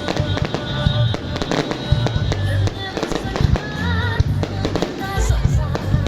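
Fireworks going off in a dense, irregular run of bangs, with music playing loudly at the same time.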